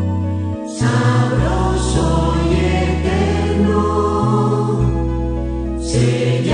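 Choir singing a Spanish Catholic communion hymn in E major over instrumental accompaniment with a sustained bass line. There is a short breath between phrases a little under a second in.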